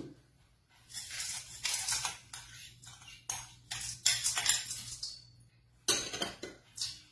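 Spatula scraping and tapping washed white rice out of a glass bowl into a stainless steel mixing bowl: a run of irregular scrapes and clinks of utensil against glass and metal, with a short pause about five seconds in.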